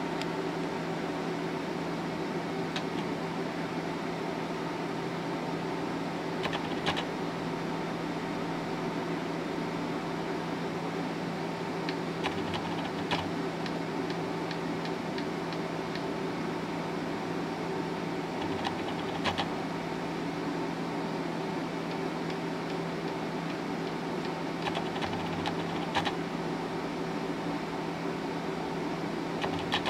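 Steady whir and mains hum of running bench test equipment around a 1950s vacuum-tube frequency counter, with a constant low hum tone. Short clusters of button clicks come every five or six seconds.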